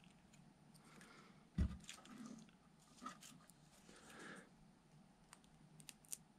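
Faint handling noises of fingers working a small plastic solderless connector onto a flexible LED light strip, with a soft bump about a second and a half in and a few small clicks near the end.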